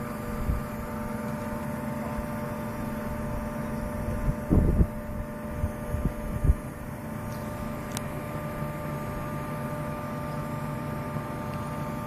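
Machinery running with a steady hum, several held tones over a low rumble. A few short thumps come about four and a half and six and a half seconds in.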